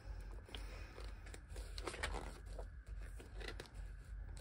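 Pages of a large paper board-game rulebook being turned and pressed flat by hand: irregular paper rustling with small crinkles and taps.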